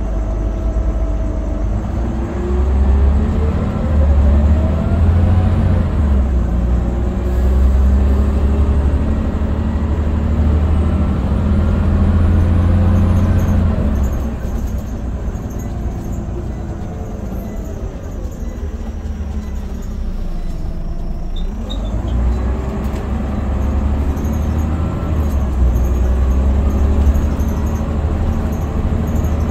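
Scania Omnicity single-deck bus heard from inside the passenger saloon. Its diesel engine pulls hard with rising pitch in the first few seconds and runs strongly. About halfway through it eases off to a quieter lull, then pulls again and builds up in the last several seconds.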